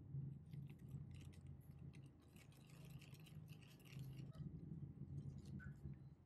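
Wooden spoon stirring a thin starch-and-sauce mixture in a ceramic bowl: faint, quick scraping and light clicks of the spoon against the bowl.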